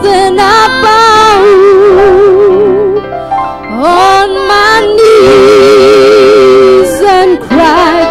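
Two women singing a church song together into microphones, in harmony, holding long notes with vibrato and pausing briefly between phrases, over a steady sustained instrumental accompaniment.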